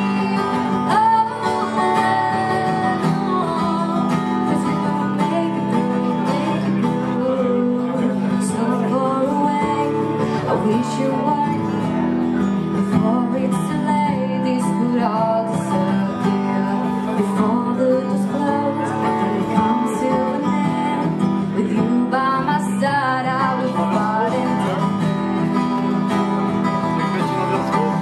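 Live acoustic guitar playing steadily, accompanying a woman's singing voice.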